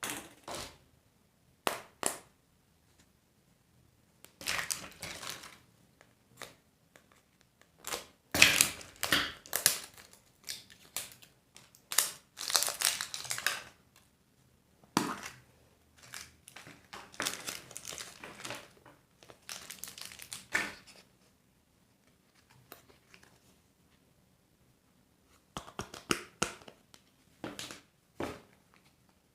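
Candy and surprise-egg wrappers being crinkled and torn open by hand, in irregular bursts of crackling with short pauses between, loudest about a third of the way in.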